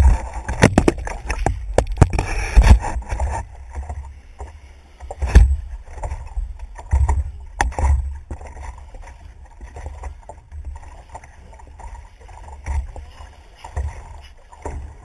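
Water sloshing and lapping against a paddleboard, picked up by a camera mounted on the board, with a constant low rumble. Sharp knocks and bumps on the board come in the first few seconds and twice more later.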